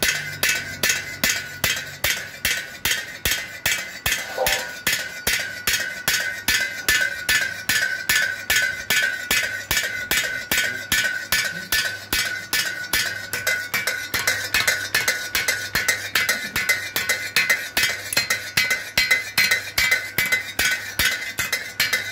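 Homemade motor-driven mechanical hammer striking steel in a fast, even rhythm, about three sharp metallic clinks a second, with a low electric-motor hum underneath.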